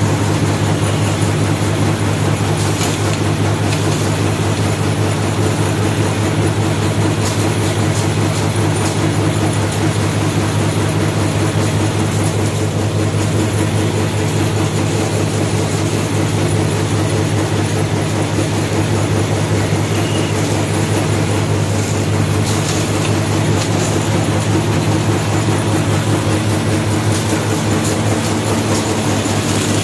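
High-speed straw packing machine running continuously, a steady mechanical noise with a strong low hum from its motor and drive.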